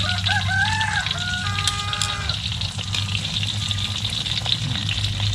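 Breaded prawn tempura deep-frying in hot oil: a steady sizzle with many small crackles. A few held notes of background music play over the first two seconds.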